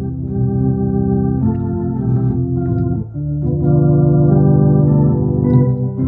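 Two-keyboard home electronic organ played in slow, held chords over a sustained bass note, with a change of chord about three seconds in.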